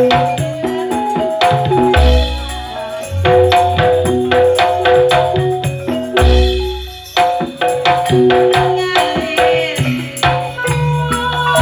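Live campursari music in Banyuwangi gending style: a melody of sustained pitched notes over a fast run of hand-drum strokes, with a deep low stroke twice, about 2 and 6 seconds in.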